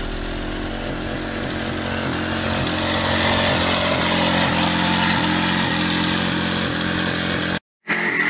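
Small single-cylinder lawnmower engine running steadily as it drives a home-built go-kart, its pitch shifting slightly up and down. The sound cuts out for a moment near the end, then comes back higher-pitched.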